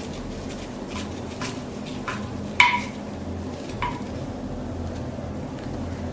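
Small metal parts being handled and tapped together: about five light clinks, the loudest about two and a half seconds in with a short metallic ring, over a steady low hum.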